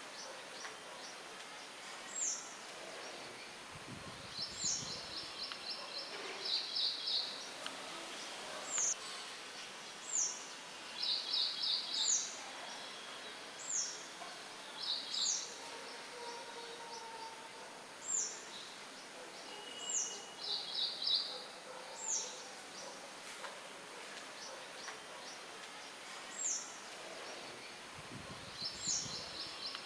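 Songbirds singing over a steady hiss of light wind in the leaves: short high down-slurred notes repeated every second or two, mixed with quick trills.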